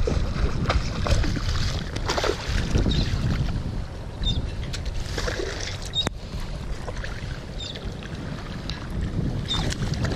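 Wind buffeting the action camera's microphone in a steady low rumble, with water splashing at the surface several times as a hooked fish is reeled in close.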